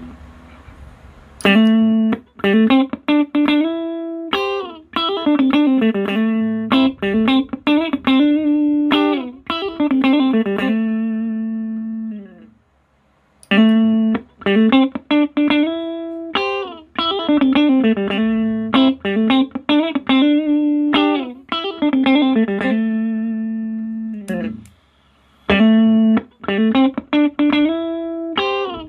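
Electric guitar, a Sterling JP60 through a compressor pedal, playing a single-note melodic phrase with the notes held and evenly sustained. The same phrase starts about a second and a half in and is played three times, with short breaks between.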